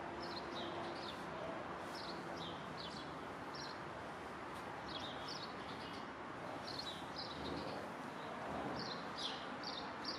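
Small birds chirping in short, repeated calls over a steady hiss of street noise.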